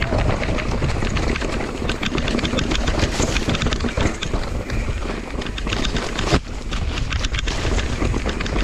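Mountain bike rolling fast along a dirt singletrack, with wind on the microphone and a constant rattle of sharp clicks as sunflower stalks and leaves slap and brush against the handlebars and rider. One louder knock about six seconds in.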